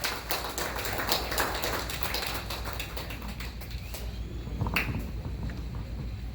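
People sitting back down in a hall: scattered light knocks and taps with rustling, densest in the first few seconds, and one sharper knock near the end.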